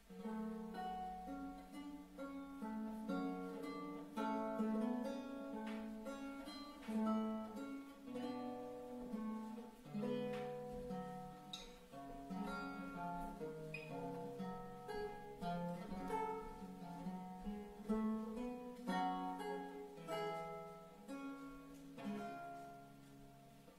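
Renaissance lute playing, with plucked single notes and chords ringing together.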